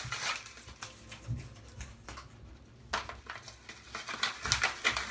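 Padded mailing envelope being opened and handled: irregular rustling and crinkling with small clicks, in scattered clusters.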